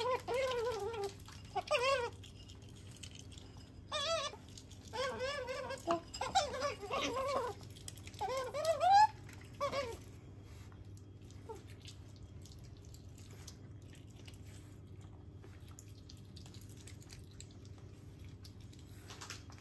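Asian small-clawed otter squeaking: a string of short, high-pitched calls with a fast-wavering pitch over about the first ten seconds, then only quiet room tone with a few faint ticks.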